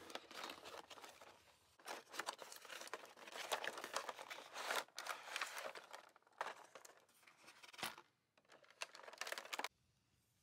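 Plastic blister packaging and cardboard backing crinkling and crackling as a toy pack is pulled open by hand, in several bouts of crackle that stop abruptly near the end.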